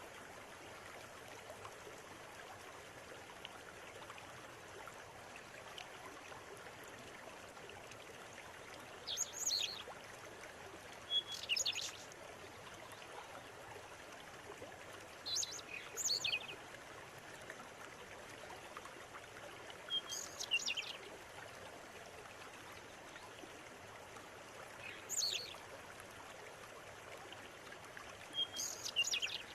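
River water running steadily, with a bird giving short bursts of high, sharp chirping calls, six times, every four to five seconds from about nine seconds in.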